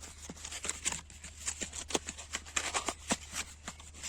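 A package being opened by hand: irregular crinkling, small clicks and taps, over a steady low hum.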